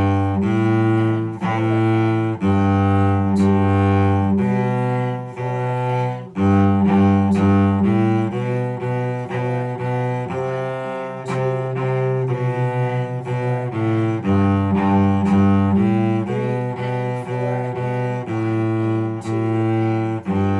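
Solo cello bowed through a simple beginner melody, one held note after another at a steady pace, with a stretch of quicker, shorter notes in the middle.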